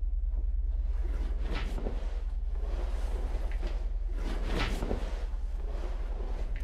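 Dark horror-film sound design: a steady low drone under swelling rushes of hissing noise that peak twice.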